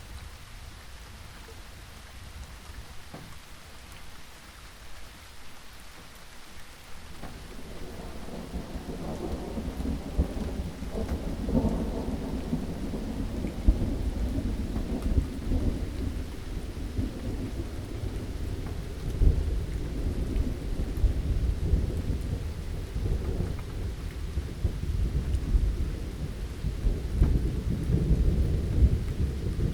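Steady rainfall with thunder: about a quarter of the way in, a long, deep rumble builds up and keeps rolling to the end, swelling louder several times.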